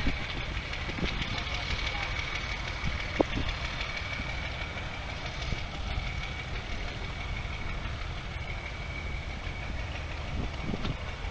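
Vintage farm tractor engines idling, a steady low rumble, with a steady high whine running over it and a single sharp click about three seconds in.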